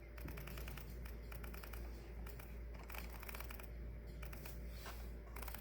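A live cicada shut inside a prop communicator box, buzzing in bursts of rapid clicks.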